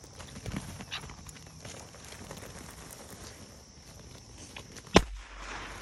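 A single sharp, loud gunshot about five seconds in, a training shot fired to introduce a young German shorthaired pointer to gunfire during a bump and chase. Faint footsteps are heard before it.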